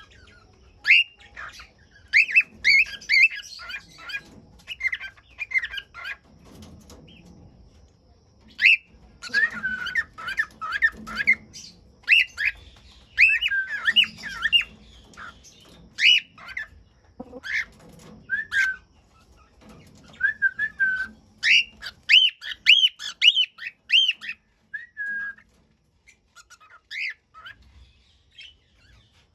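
Cockatiels chirping and whistling in quick runs of short, high notes, with a brief lull partway through, and falling mostly quiet near the end apart from a few single calls.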